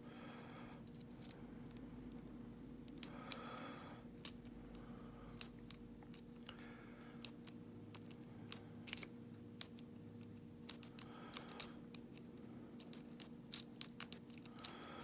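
Irregular small metallic clicks and ticks of a pick and tension tool working the pins of a Godrej Scorpio dimple padlock during a picking attempt, over a low steady hum.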